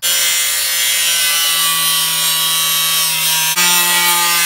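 Corded angle grinder cutting through the steel front fender of a Mazda Miata: a loud, steady high whine over a gritty hiss as the disc bites into the sheet metal. The pitch sags slightly under load and shifts suddenly about three and a half seconds in.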